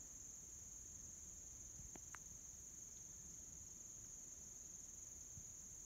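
Faint, steady high-pitched drone of insects, with two short chirps about two seconds in.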